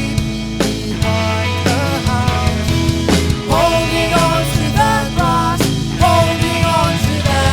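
Rock music with a drum kit keeping a steady beat under a bass line and a melodic lead.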